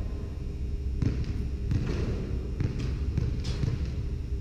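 Volleyballs being hit and bouncing on a wooden gym floor: several irregular thuds in a large indoor hall.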